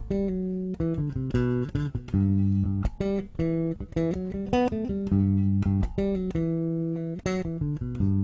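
Six-string MTD electric bass played fingerstyle: a quick run of raked arpeggios with hammer-ons, several notes a second, moving back and forth between a G major shape and its relative Locrian half-diminished (minor 7 flat 5) shape. The playing is a little sloppy.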